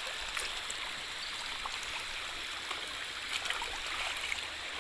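Shallow creek water running and trickling steadily over mud and stones, with a few faint clicks.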